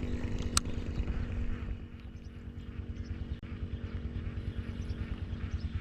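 A motor vehicle's engine running with a steady drone that fades away over the first two seconds, with a sharp click about half a second in and an irregular low rumble continuing throughout.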